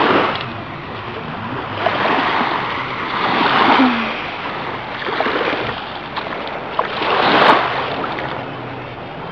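Small waves washing up on a sandy shore, the surf swelling and fading three times.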